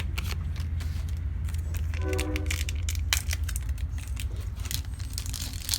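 Pokémon trading cards and booster-pack wrappers being handled: a run of sharp clicks and rustles over a steady low hum.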